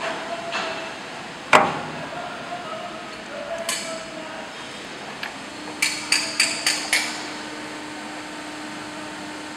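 Metal knocks and clinks as a cast-iron lathe steady rest is set down on the lathe bed and clamped. There is one heavy knock about a second and a half in, a lighter clink near four seconds, then a quick run of five ringing metallic taps around six to seven seconds.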